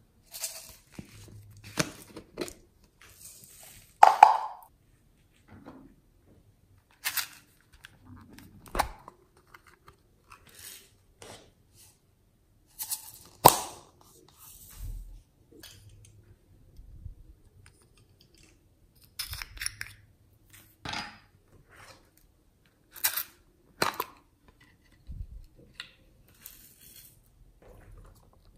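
Hands handling plastic slime tubs and lids and shaking toppings onto foam slime: scattered clicks, taps and short crunchy rustles at irregular intervals, a few of them much sharper and louder.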